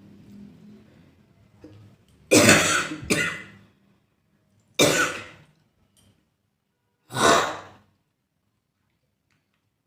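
A person coughing in four hard, separate coughs: two in quick succession a little over two seconds in, then one more near the middle and a last one a couple of seconds later.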